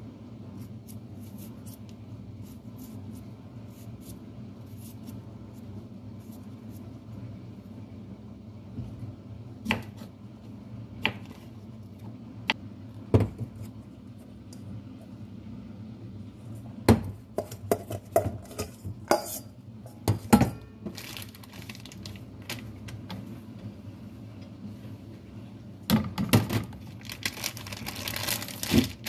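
Kitchen prep sounds over a steady low hum: a knife peeling a potato with small scraping ticks, then scattered knocks and clatter of a metal bowl and utensils, busiest in the second half.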